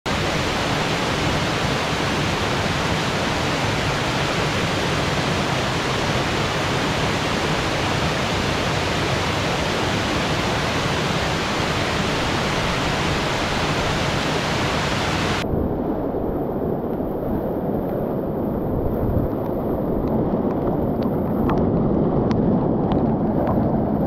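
Water of the Bâlea waterfall, a tall stepped cascade, rushing steadily down the rocks as an even hiss. About two-thirds of the way through, the sound abruptly turns duller and deeper, and a few faint knocks come near the end.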